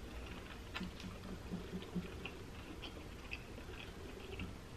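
A person chewing a mouthful of burger, with faint, scattered wet clicks and ticks of the mouth.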